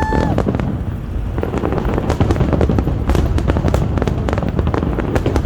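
Fireworks going off in quick succession: a dense run of crackles and pops over a continuous low rumble, with a short rising whoop right at the start.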